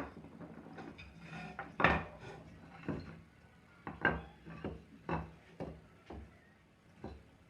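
Light, irregular wooden knocks and clicks, about one a second, as pieces of dried bamboo are handled and set down against each other.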